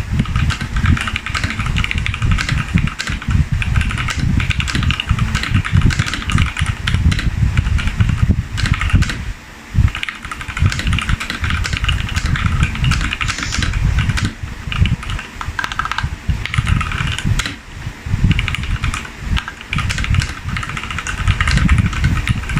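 Keys being typed on a mechanical keyboard: rapid, irregular clicking in runs with short pauses, over a steady low rumble.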